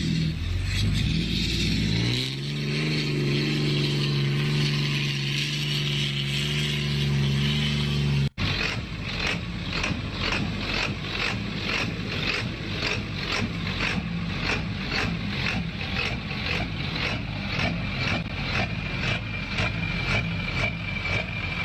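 A lifted pickup's engine revs up about 2 s in and holds a steady pitch while pulling on a tow strap, until a cut. Then a lifted diesel Ford pickup idles with a rhythmic, choppy lope of about two to three pulses a second from a lope tune.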